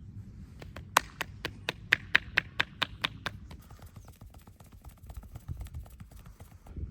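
Massage hand taps: a quick, even run of sharp taps, about four to five a second, starting about half a second in and going on more faintly after about three seconds.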